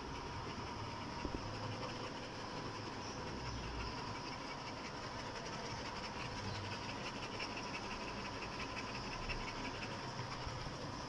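A Rottweiler panting, over a steady background hiss with a faint high steady tone.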